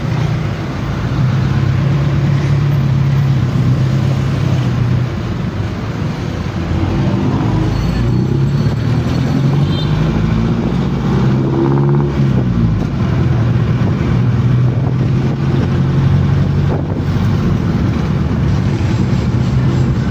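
Motor vehicle engine running steadily and close, with its pitch dipping and rising again in the middle as it slows and speeds up.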